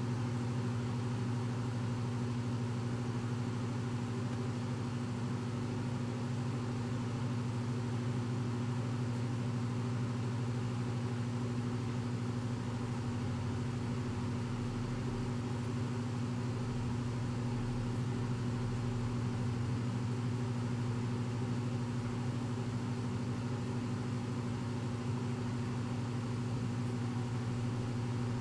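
Steady low hum with no change in pitch or level.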